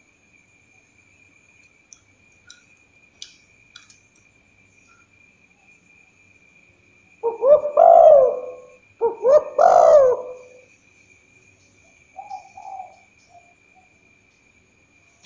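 Spotted dove cooing: two loud multi-note coo phrases about seven and nine seconds in, followed a little later by a few softer short notes.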